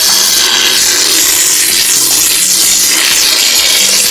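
Urethane spray foam being dispensed from its can into a steel pipe: a loud, steady hiss.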